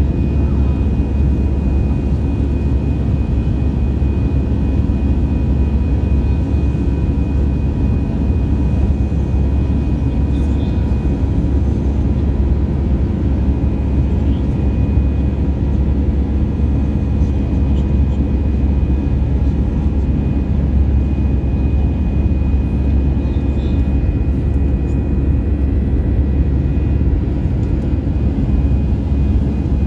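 Airbus A320 cabin noise during the climb after takeoff: a steady low engine and airflow rumble heard from inside the cabin, with a few faint, steady whining tones over it.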